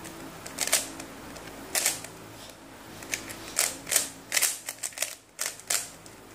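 ShengShou Legend 3x3 speed cube being turned by hand, its plastic layers clacking with each turn. The clicks come singly at first, then in a quicker run of turns from about three and a half seconds in.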